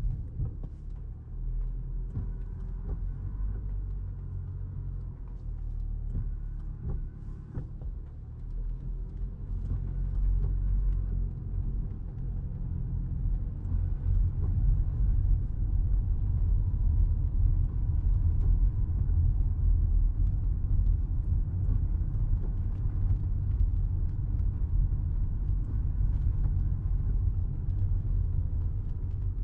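Inside the cabin of a Toyota Crown Athlete hybrid driving on wet streets: a steady low rumble of road and tyre noise that grows louder about ten seconds in and stays up.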